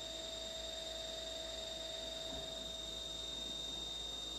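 CNC milling machine taking a finish facing pass in 6061 aluminum under flood coolant: a steady high whine with a lower steady tone over a low hum.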